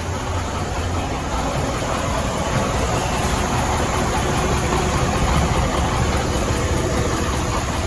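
Detroit DD15 inline-six diesel idling with a loud, rapid ticking from the valve train, the sign of a damaged or missing rocker arm adjusting-screw button.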